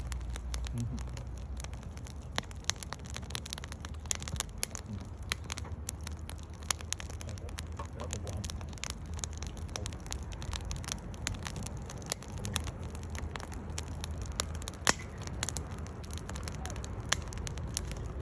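Firewood burning in an open fire pit, crackling with frequent irregular sharp pops over a low steady rumble.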